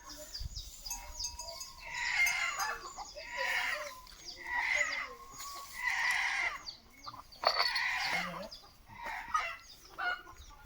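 Chickens calling repeatedly, a string of loud calls every second or so, with high bird chirps in the first couple of seconds.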